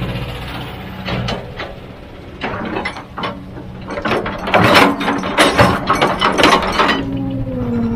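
Heavy machine's engine running, with a dense run of sharp clanks and knocks from about the middle on.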